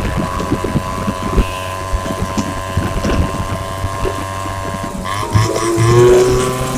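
Bajaj M80's two-stroke single-cylinder engine running steadily, its pitch rising a little about five seconds in.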